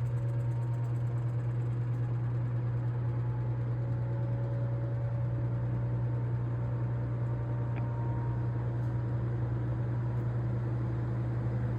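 Vintage Air King PL20E box fan with a GE motor and metal blades running steadily on its low setting: a deep, steady motor hum under an even rush of air.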